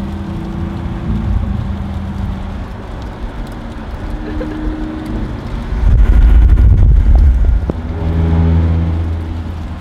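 Lamborghini Aventador Roadster's V12 engine running while the car is driven with the top down, over open-air road and wind noise. A loud low rumble swells about six seconds in for a second and a half, then the engine note comes through clearly with a steady pitch.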